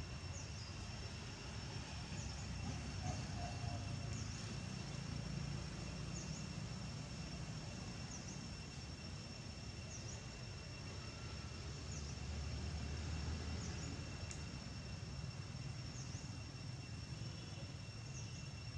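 Forest ambience: insects droning steadily at two high pitches, with short high chirps every second or two over a low rumble.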